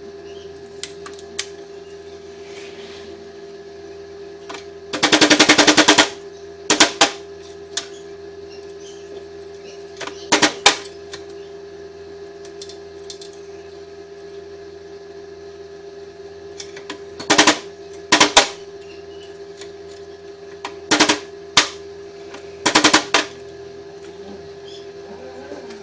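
Stick (arc) welding: short crackling bursts of arc, the longest about a second, struck again and again with pauses between, over a steady hum.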